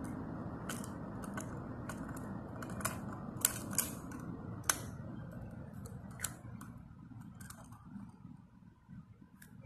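Light plastic clicks and taps, about ten at irregular intervals, as a toy garbage cart is handled and set against the rear cart tipper of a die-cast toy rear-loader garbage truck. A steady low background rumble drops away about seven seconds in.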